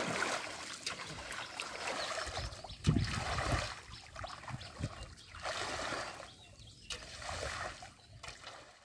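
Water splashing and trickling in irregular surges, as water is stirred and poured by hand or by wading. The surges fade toward the end.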